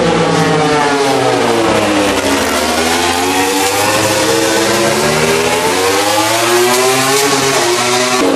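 MotoGP race motorcycle's 1000 cc engine running loud at high revs, its pitch falling and rising several times through the throttle and gear changes, with a sharp drop near the end.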